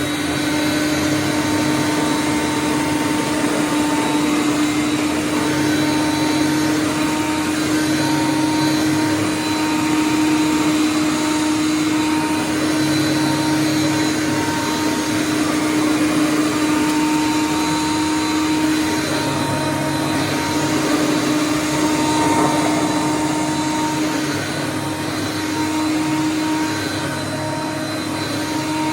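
Hoover Conquest upright vacuum cleaner running steadily, its motor-driven fan giving a constant high whine over a dense rush of air, with slight rises and falls in loudness as it is pushed back and forth.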